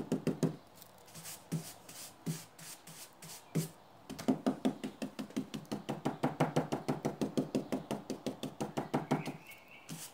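Stiff stipple brush dabbed rapidly onto a painted MDF board, a fast run of soft knocks at about seven a second. The knocks stop for a few seconds with only a few scattered taps, then start again. This is dry-stippling to lift fresh metallic paint off and leave an aged patina.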